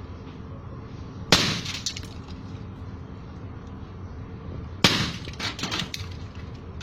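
Two air gun shots about three and a half seconds apart, each a sharp crack followed by glass breaking; after the second, pieces of glass clink and clatter for about a second.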